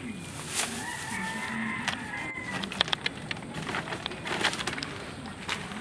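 A rooster crows once, a long held call starting about a second in. Then comes a run of sharp clicks and knocks as a bolo knife works paper on a wooden block.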